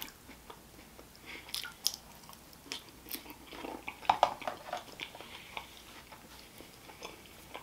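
A person chewing a mouthful of food with the mouth closed: short smacks and clicks at irregular intervals, the loudest about four seconds in.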